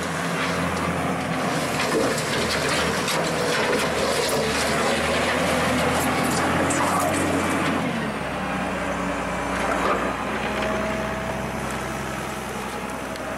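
Wheel loader's diesel engine running close up, its note changing about eight seconds in, with scattered clicks and rattles as the bucket works the earth.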